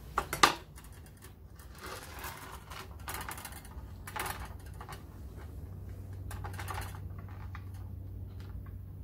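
Copper brake pipe clattering on a workbench, with a sharp metallic clink about half a second in as the bent length is put down. This is followed by softer scraping and rattling as the coil of copper pipe is handled and drawn along the bench.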